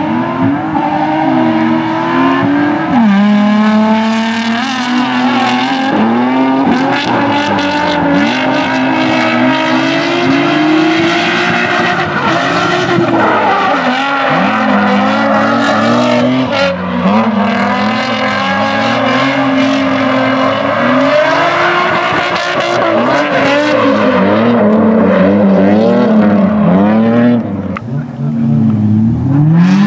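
Drift cars, a Nissan 350Z among them, sliding at full throttle. The engine note climbs and falls over and over as the throttle is worked, with tire squeal throughout. Near the end the sound dips briefly, then an engine revs up steeply.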